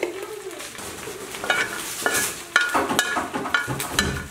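Metal ladle stirring and scraping whole spices (cardamom pods, a nutmeg) around the bottom of a dark pot as they roast, in a string of separate scrapes and clicks over a faint sizzle.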